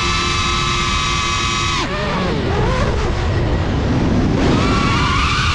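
Small FPV drone's brushless motors whining: steady pitch at first, a sudden drop in pitch about two seconds in as the throttle is cut, wavering while the drone dives, then climbing again near the end as the throttle comes back. Wind rumbles on the onboard camera's microphone under the whine.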